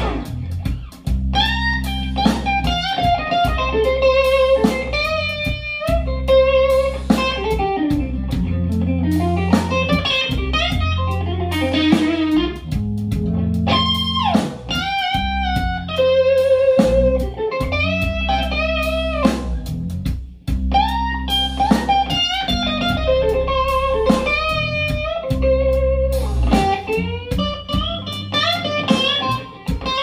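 Blues with electric guitar, played back through a home hi-fi's loudspeakers driven by AGD Production Audion monoblock amplifiers. Sustained guitar notes wobble with vibrato and bend in pitch over a steady bass line.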